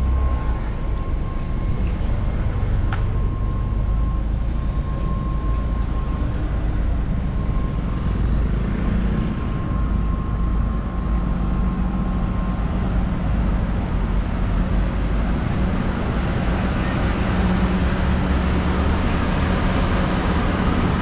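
Steady low rumble of a running vehicle, with a faint steady whine for the first half and a low hum joining it partway through.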